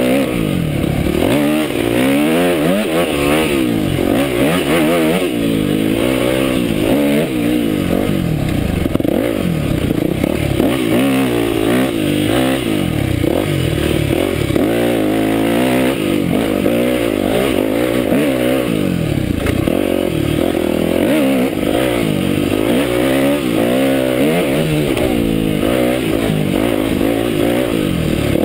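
Yamaha YZ250F dirt bike's four-stroke single-cylinder engine under way on a trail, its pitch rising and falling about every second or two as the throttle is opened and closed.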